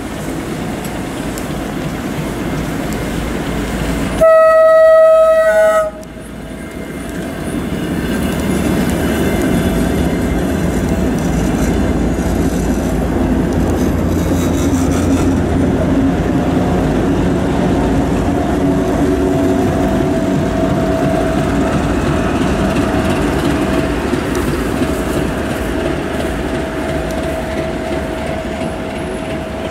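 2M62U diesel locomotive sounds its horn in one loud blast of about a second and a half, about four seconds in, then runs past with the steady rumble of its diesel engines and wheels on the rails as it pushes an SDPM rotary snowplough car.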